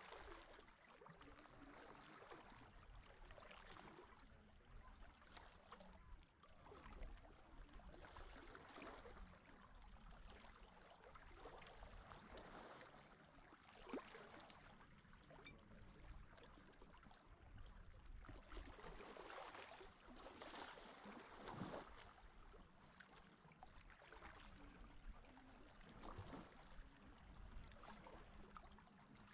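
Faint, gentle sea water lapping and gurgling at the shore, swelling and fading irregularly every few seconds, with a few small splashes.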